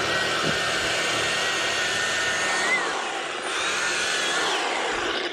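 EGO POWER+ power head with the 22-inch bristle brush attachment running, its spinning bristles sweeping sand along a concrete edge: a steady whir with a high motor whine. It shuts off right at the end.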